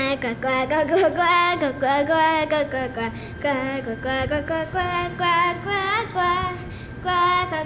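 Monk parakeet (quaker parrot) singing in a mimicked human-like voice, a continuous run of short sung phrases that rise and fall in pitch.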